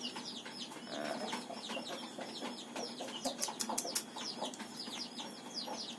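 Birds chirping: a steady stream of short, high-pitched, falling chirps, several a second, with a few sharp clicks about three to four seconds in.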